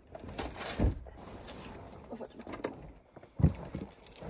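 Bedding and pillows rustling as people climb out of bed in a camper van, with two dull thumps, one about a second in and a louder one near the end.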